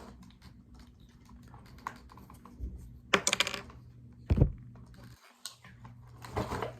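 Small plastic toy parts being handled and set down: scattered light clicks and taps, a brief clatter about three seconds in and a dull thump about a second later.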